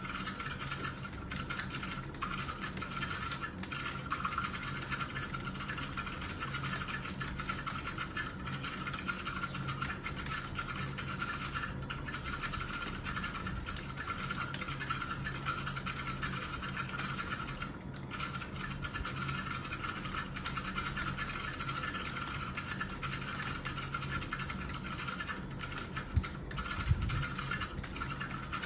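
Fast, continuous typing on a computer keyboard: a dense run of key clicks with a brief pause about 18 seconds in.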